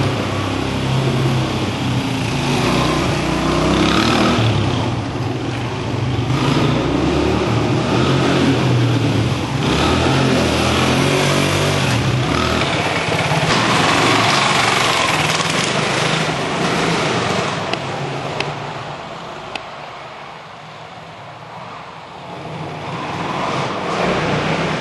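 Off-road motorcycle engines running and revving. The sound fades for a few seconds near the end, then builds again.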